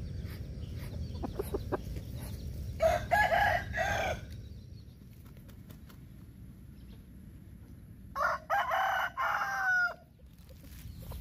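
Rooster crowing twice, a shorter crow about three seconds in and a longer one about eight seconds in that falls away at the end, with chickens clucking softly in the first seconds.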